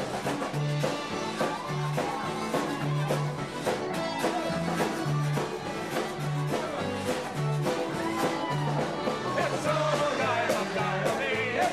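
Live band playing an upbeat song over a steady, repeating bass line, with sung vocals coming in strongly about nine seconds in.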